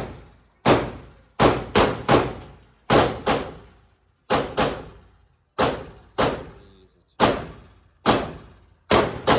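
Pistol shots fired at a gun range, about fourteen at irregular intervals, some in quick pairs. Each is a sharp crack with a short echoing decay.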